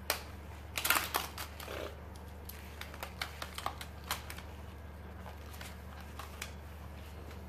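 Hot Wheels Stunt n' Go transporter's plastic track and launcher clicking and knocking as they are handled and fitted together. There is a cluster of clicks in the first second or so, then scattered lighter clicks, and these thin out about two-thirds of the way through.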